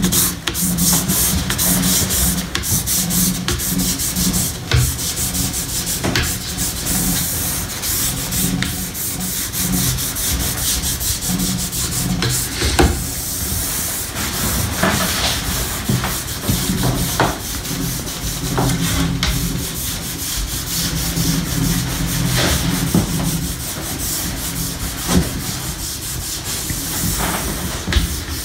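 Sponge-tipped applicator of a liquid glide-wax bottle scrubbed back and forth along a cross-country ski's base, working the liquid wax in over fluoro powder, in repeated strokes with a few light knocks.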